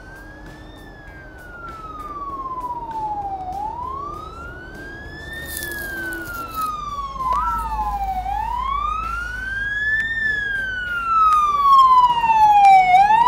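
Emergency vehicle siren wailing, slowly rising and falling about every five seconds, three times over. It grows louder near the end as it draws closer, and switches to quick short yelps at the very end.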